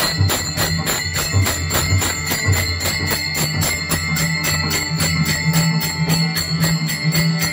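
Bhajan accompaniment: taal hand cymbals clashing in a fast, even rhythm over pakhawaj drum strokes and held harmonium notes.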